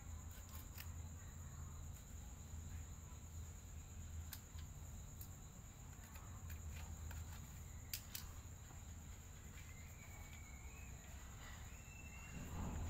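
Quiet background: a steady high-pitched insect-like tone over a low hum, with a few faint clicks.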